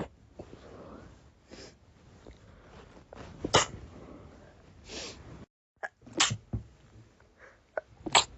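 A person in a sneeze attack: several sneezes in a row at irregular gaps, some sharp and loud, some stifled and softer.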